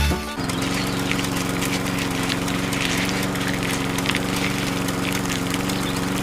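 An engine running steadily at constant speed, starting about half a second in as the music cuts off.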